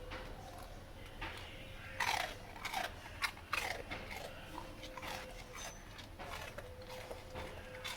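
A dog chewing and crunching its food in irregular bites, starting about two seconds in and loudest over the next two seconds.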